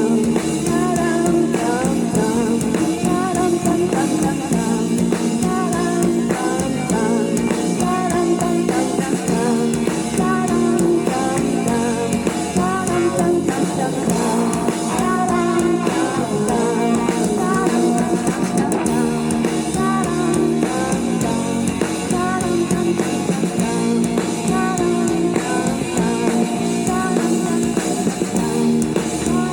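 Live psychedelic rock band playing: guitar over drum kit, loud and without pause.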